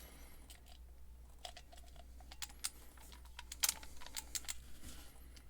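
Irregular small clicks and taps of a bit screwdriver being handled and worked at the stubborn screws of a Showa X-Key lock.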